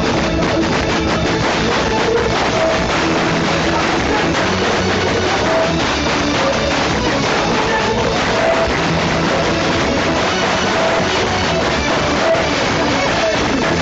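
Loud live band music from the stage sound system, with instruments playing continuously.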